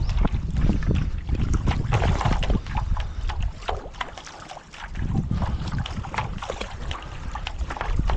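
Strong wind buffeting the microphone, with water splashing from paddle strokes on a race stand-up paddleboard being paddled into a headwind. The wind eases briefly around the middle, then picks up again.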